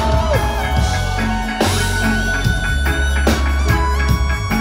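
Live rock band playing an instrumental stretch between sung lines: electric guitars over a low, held bass line and a drum kit, with a couple of loud cymbal-like strikes.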